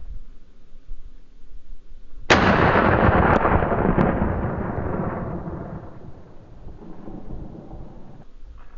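A rifle shot about two seconds in, its rolling echo fading away over several seconds. Two sharp clicks follow about one and one and a half seconds after the shot.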